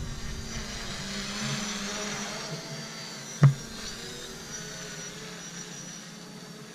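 JJRC X11 Scouter quadcopter drone's motors and propellers whirring steadily overhead, slowly fading as it flies off in its faster speed setting. A single sharp knock about three and a half seconds in.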